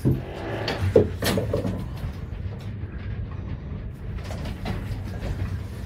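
Storm wind buffeting a moored boat as it rocks: a steady low rumble, with a few knocks and creaks in the first second and a half.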